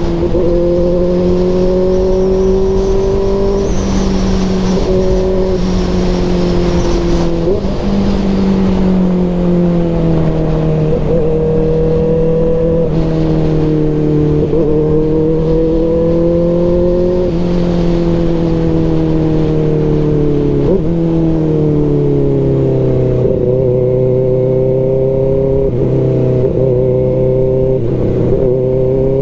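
Kawasaki Ninja ZX-4RR's 399 cc inline-four running through an SC Project CRT aftermarket exhaust. The engine note holds steady and loud, its pitch drifting slowly down and up, with several brief breaks in the note.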